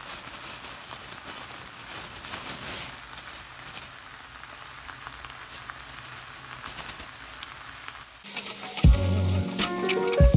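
Tteokbokki sauce simmering and sizzling around rice cakes as shredded cabbage is tipped in, an even hiss with small crackles. Background music with a beat comes in about eight seconds in and takes over.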